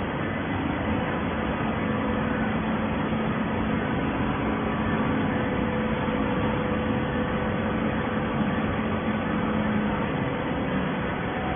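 Automatic horizontal hydraulic baler running: a steady mechanical hum with a low drone and a fainter, higher tone.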